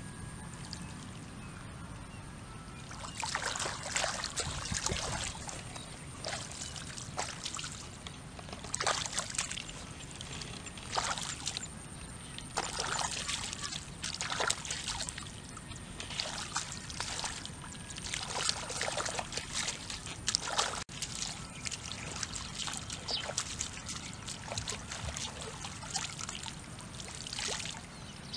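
Hands splashing and sloshing in shallow muddy water in irregular bursts every second or so, groping for fish by hand.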